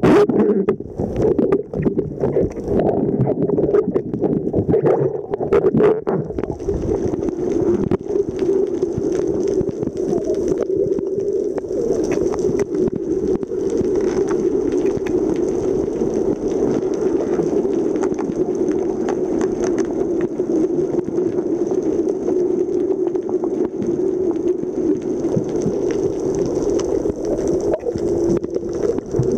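Underwater sound picked up by a camera held just below the surface: a steady muffled rumble and gurgle of water. There are knocks and splashes in the first few seconds, and a faint high steady whine joins about six seconds in.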